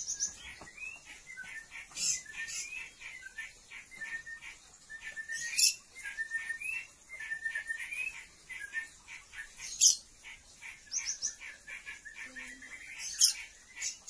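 Oriental magpie-robins (kacer) calling, a male courting a female: a steady run of short, quick chirps, broken four times by a loud, sharp high note about every three to four seconds.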